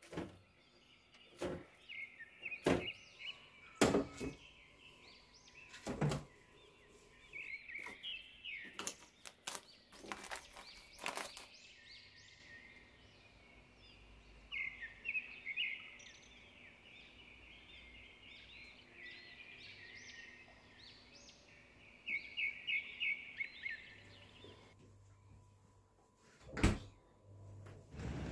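Food and containers being handled and set down while stocking a refrigerator: about ten scattered knocks and clunks, the loudest near the start and near the end. Between them come several stretches of high, rapid chirping.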